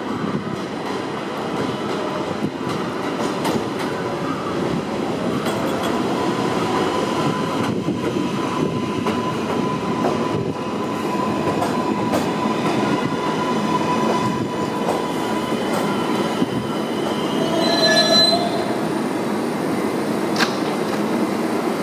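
New York City subway train of R142A/R188 cars pulling into a station and braking to a stop: a steady rumble of steel wheels on rail, with a thin high wheel squeal holding for several seconds midway and another short squeal about 18 seconds in.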